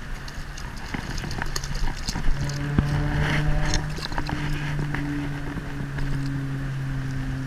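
A hooked crappie splashing at the water's surface as it is brought in by hand, with short clicks and splashes over the first few seconds. A steady low motor hum comes in about a second and a half in and keeps going.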